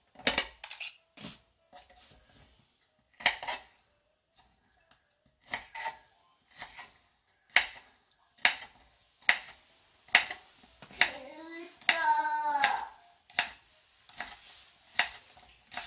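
A knife slicing a green onion on a wooden cutting board: single crisp chops that land on the board at uneven intervals, roughly one every half second to a second. About eleven seconds in, a child's voice sounds for about two seconds.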